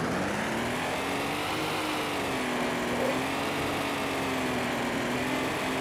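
Electric RC off-road car's motor whining over a steady hiss. The pitch rises as the car speeds up over the first couple of seconds, then wavers gently with the throttle.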